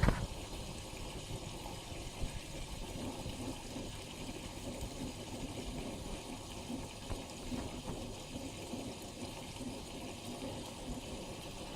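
Schulthess washing machine mid-cycle, water sloshing steadily in the drum.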